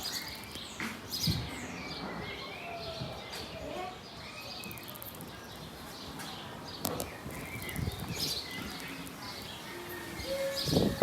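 A bird calling: a varied run of short whistled notes, pitch glides and sharp clicks, with no regular rhythm.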